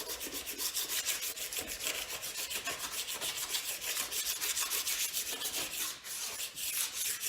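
Plastic wax scraper rasping across a freshly waxed snowboard base in quick repeated strokes, stripping off the excess wax, with a brief pause about six seconds in.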